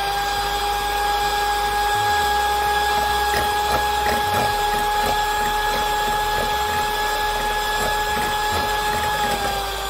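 Philips electric hand mixer running with a steady whine as its beaters whip egg and oil in a glass bowl, starting to slow down near the end.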